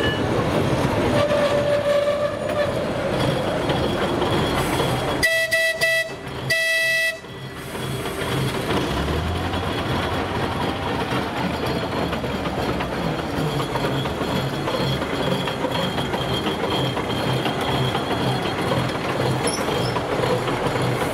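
Narrow-gauge TU2 diesel locomotive hauling a passenger train, with the steady noise of the train running. About five seconds in, the locomotive's horn gives two short blasts about a second apart.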